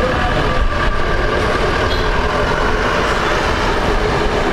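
Steady engine noise: a continuous low rumble with a steady whine above it.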